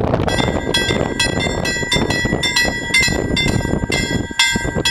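Level crossing warning bells start ringing about a third of a second in, struck repeatedly at about two to three strikes a second, the crossing's warning signal that a train is approaching. A low wind rumble on the microphone runs underneath.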